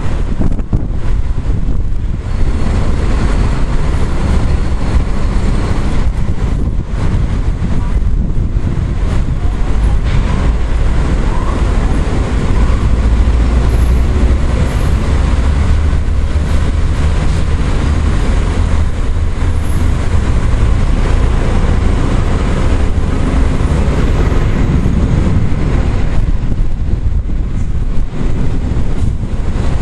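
Strong storm wind blowing across the microphone: a loud, steady rumble with no breaks.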